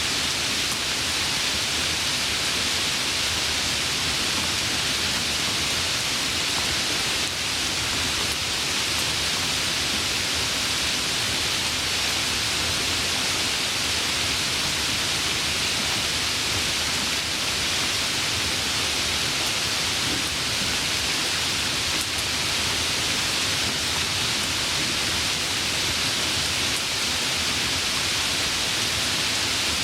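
Heavy rain falling, a steady, unbroken hiss with no drops or thunder standing out.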